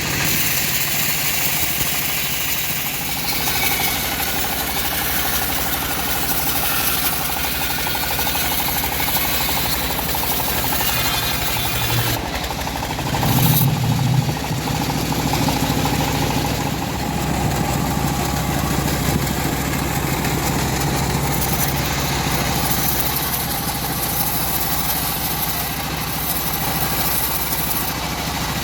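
Engine-driven home-built bandsaw mill running steadily, with the hiss of the blade in wood over the engine hum. About 12 seconds in, the hiss briefly drops away and the engine note deepens for a couple of seconds, then the steady running resumes.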